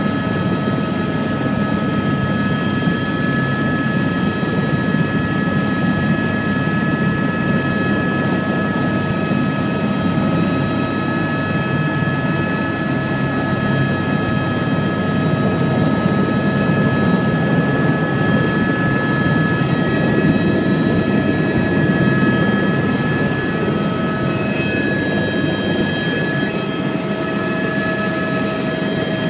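Helicopter engine and rotor running steadily on the ground, heard from inside the cabin: several steady high whining tones over a dense rushing drone, a little louder for a few seconds in the middle.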